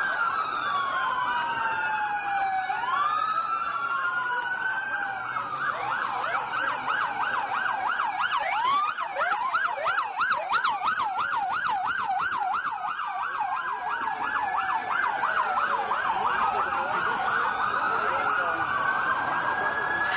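Several emergency-vehicle sirens sounding at once, their slow rising-and-falling wails overlapping. In the middle a fast yelp takes over for several seconds, about three sweeps a second, before the slower wails return.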